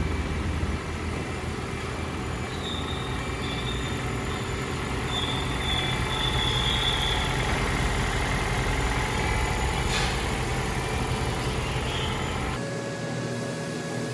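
A vehicle engine running steadily with a deep rumble, a faint high squeal in the middle and a single click about ten seconds in; the rumble stops abruptly near the end.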